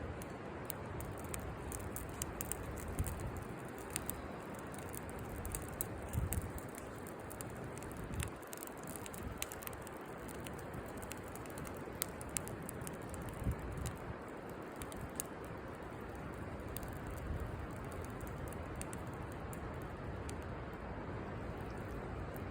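Wood campfire burning in a fire pit: a steady hiss with sharp crackles and pops at irregular intervals.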